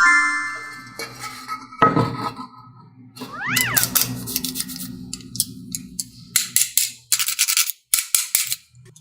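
Cartoon sound effects: a short tone at the start, a knock about two seconds in, then a cat's meow that rises and falls in pitch, followed by several short hissing bursts near the end.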